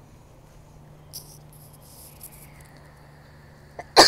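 Faint high-pitched insect chirping over a steady low hum, then a sudden, loud sneeze from a person with allergies near the end.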